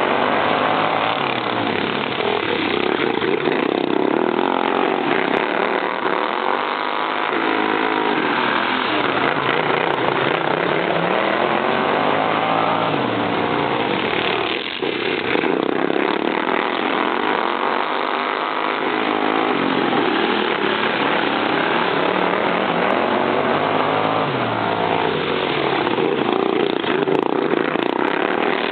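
Super modified racing lawn mowers' engines running hard, several at once, their pitch repeatedly rising and falling every few seconds as they accelerate and back off around the track.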